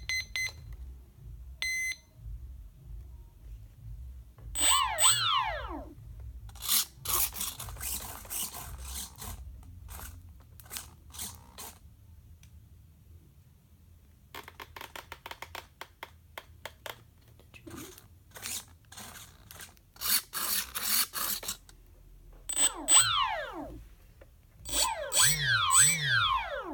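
Electronic speed controller beeping twice near the start. Then the plane's small electric motor is blipped several times, each time its whine falling steeply in pitch as it spins down. In between are long stretches of rapid buzzing and clicking, the 9-gram servos driving the control surfaces.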